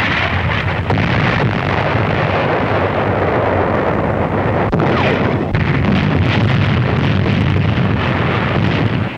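Continuous roar of artillery fire and explosions on an old newsreel battle soundtrack, steady and loud with no single shot standing out.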